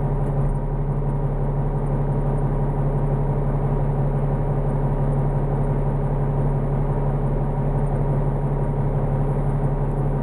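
Kenworth logging truck's diesel engine running steadily, a constant low drone with no change in pitch or level.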